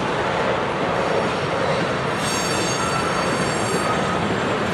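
Freight train of tank cars rolling past with a steady rumble of wheels on rail; a little past halfway a high, ringing wheel squeal sets in as the wheels grind through the curve.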